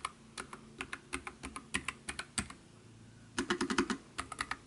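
Typing on a Nuphy Air75 low-profile mechanical keyboard with Gateron brown switches: irregular key clicks, with a quick, louder run of keystrokes a little past halfway.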